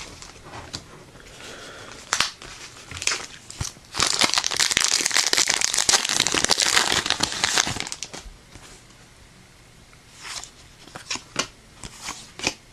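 Foil Yu-Gi-Oh booster pack wrapper being torn open and crinkled: a dense crackling stretch of about four seconds in the middle, with scattered short clicks and rustles before and after.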